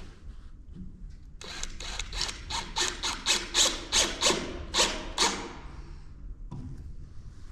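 A hand tool scraping back and forth, about fifteen quick rasping strokes at roughly four a second, starting about a second and a half in and stopping a little after five seconds. A single knock comes near the end.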